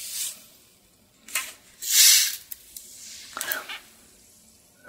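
Powdered kombucha tea poured from a stick pack onto ice in a glass, and a plastic bottle of sparkling water being twisted open. The loudest sound is a sharp hiss of escaping gas about two seconds in, and a shorter fizzing sound follows about a second later.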